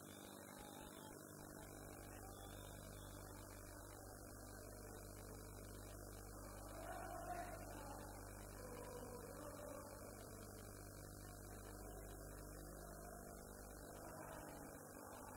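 Steady electrical mains hum with a faint stadium crowd murmur beneath it, the crowd swelling briefly about seven seconds in.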